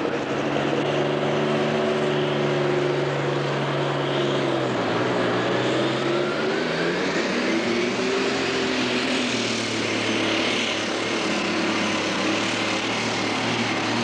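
Super stock pulling tractor's diesel engine running hard under load as it drags the sled down the track. Its pitch sags about four seconds in, and a high whine then rises over the next few seconds above the engine.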